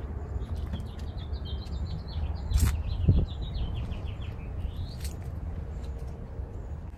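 A small songbird singing a rapid run of short chirping notes that ends in a rising sweep, over a steady low rumble, with a sharp click about two and a half seconds in.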